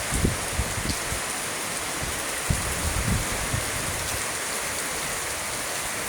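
Heavy rain pouring steadily in an even hiss, with brief low gusts of wind buffeting the microphone now and then.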